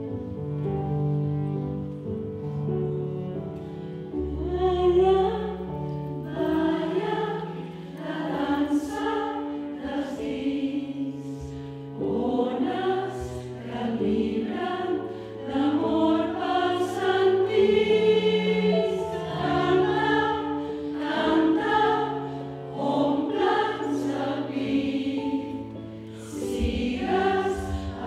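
Women's choir singing, over instrumental accompaniment that holds steady low notes beneath the voices.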